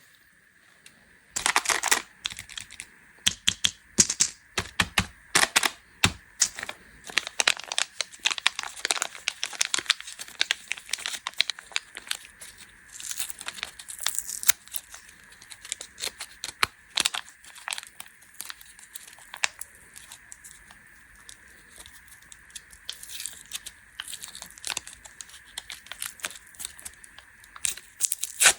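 Plastic candy wrappers being crinkled and torn open: a dense run of crackles and sharp rustles, starting about a second in.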